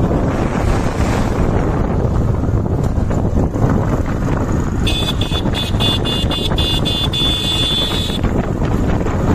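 Heavy machinery's diesel engine running steadily, with wind on the microphone. About five seconds in, a high, rapidly pulsing tone sounds for about three seconds.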